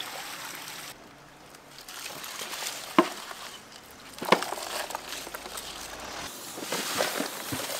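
Wet handling of cut sunfish flesh in a plastic basin, with two sharp knocks about three and four seconds in.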